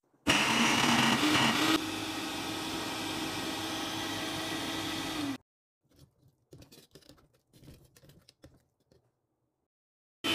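Countertop blender motor running, chopping raw chicken, green pepper and spices into a paste. It is loudest for its first second and a half, then runs steady, and cuts off suddenly after about five seconds. Faint knocks follow, and the blender starts again right at the end.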